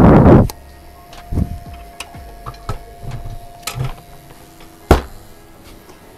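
Gaming chair parts being handled during assembly as the seat is lined up on its base: a loud scrape at the start, then scattered clicks and knocks, with one sharp knock about five seconds in.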